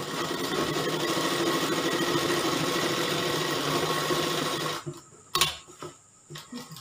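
Sewing machine stitching a seam steadily for nearly five seconds, then stopping. A sharp click and light handling sounds follow.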